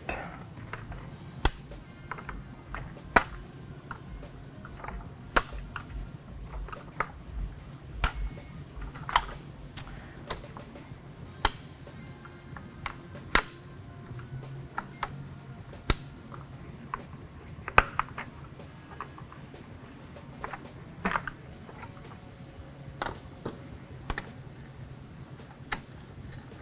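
Plastic dashboard trim parts and their clips clicking, snapping and knocking as they are pried apart with a screwdriver and handled: short sharp clicks at irregular intervals, every second or two.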